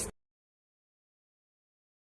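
Digital silence: the last syllable of a woman's narration cuts off right at the start, then nothing at all.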